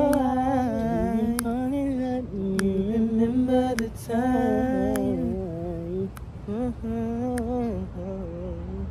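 Unaccompanied voices singing and humming a slow melody, with long held notes that waver and at times two voices in harmony. A few sharp clicks cut in.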